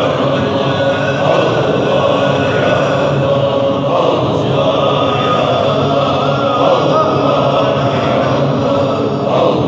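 A large group of men's voices chanting zikr together, a steady, unbroken communal chant.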